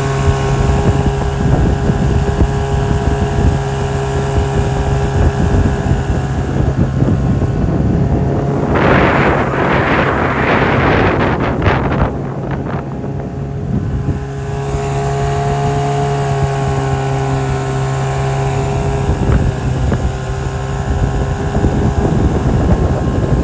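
Boat engine running steadily, with wind buffeting the microphone. A louder rushing swell of noise comes about nine seconds in and lasts around three seconds.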